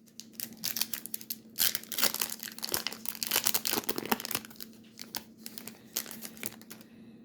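Crinkling and crackling of a trading-card pack's plastic wrapper being handled, densest in the first half and thinning out near the end.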